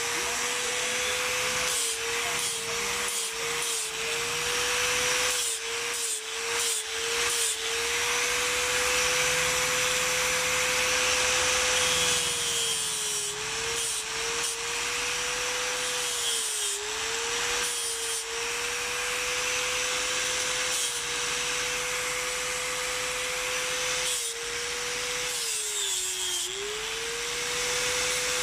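Electric angle grinder running with a steady whine while its disc grinds a piece of water buffalo horn with a gritty hiss. The motor's pitch sags several times as the disc bites harder into the horn, most deeply about three quarters of the way through.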